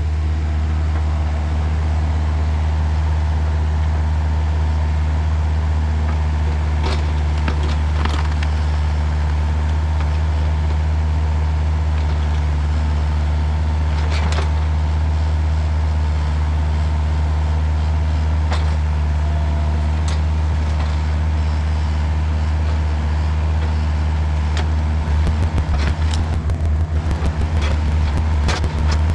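Volvo EC35C mini excavator's diesel engine running at a steady speed, with a few sharp knocks. About 25 seconds in, the engine note starts to waver and a run of clicks and knocks sets in.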